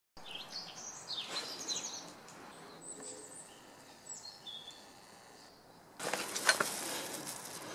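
Small birds chirping in short, high calls with quick pitch glides. About six seconds in, a louder shuffling noise of footsteps and movement takes over.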